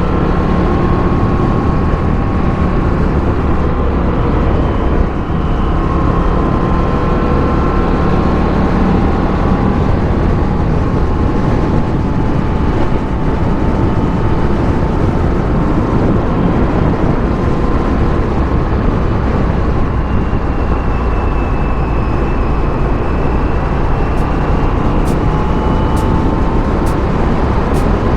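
Indian FTR 1200's V-twin engine running under way, its pitch drifting gently up and down with the throttle. Near the end come faint regular ticks, about one a second.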